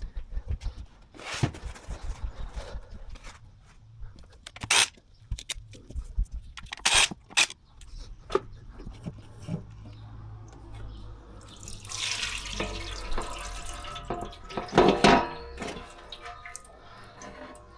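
Oil dripping from the opened 0B5 dual-clutch gearbox, among scattered clicks and knocks of tools and metal parts. Near the end there is a denser stretch of hiss and metallic ringing.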